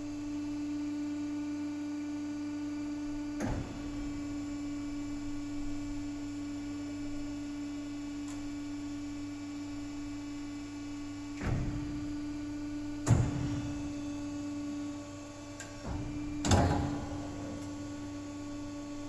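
Kasto KASTOTEC AC 3 automatic band saw running with a steady hum, broken by four mechanical clunks as its vise jaws clamp and its feed moves the bar stock forward; the loudest clunk comes near the end.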